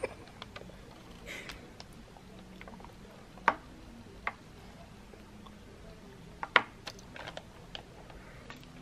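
Thick, thickening soap batter being poured slowly from a plastic bucket into parchment-lined wooden loaf molds: faint handling noise with a few sharp clicks and taps, the loudest a little past halfway.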